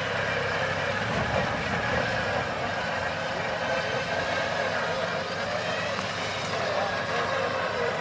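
Double-cab pickup truck engine running steadily, with indistinct voices mixed in.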